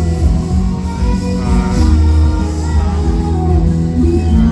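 Live pop music played over a loud PA: a sung vocal line over heavy, sustained bass.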